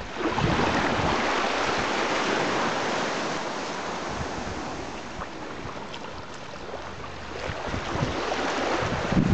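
Small waves washing at the water's edge: a steady hiss of water that eases slightly midway, with wind buffeting the microphone near the end.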